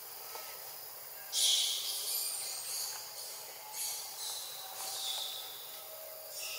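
Insects buzzing high and hissy. The buzz starts about a second in, then swells and fades in four or five pulses.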